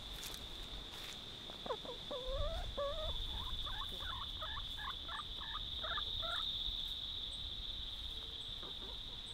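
Domestic hens clucking: a run of about eight rising-and-falling calls, starting about a second and a half in and stopping about six and a half seconds in, over a steady high insect trill.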